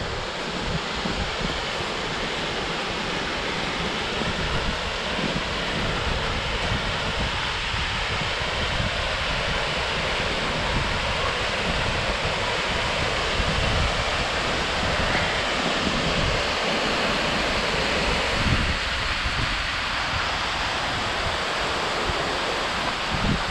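Steady rush of Ramona Falls' water cascading, with uneven low buffeting of wind on the microphone.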